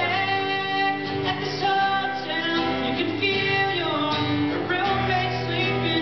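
A man singing into a microphone while strumming an acoustic guitar, holding long notes over steady chords.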